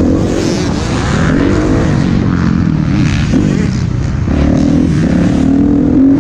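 Motocross dirt bike engine revving up and down with the throttle as it races through turns and over jumps, heard from a camera mounted on the bike, over a rush of wind and track noise.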